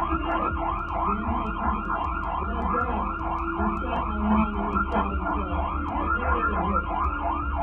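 Emergency vehicle siren in fast yelp mode, a rapid rising-and-falling wail repeating about five times a second over a steady low rumble, heard on a police dashcam recording.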